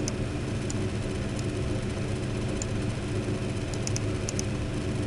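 Steady low electrical hum with a faint hiss, made of several steady low tones, with a few faint scattered clicks that sound like keyboard keys.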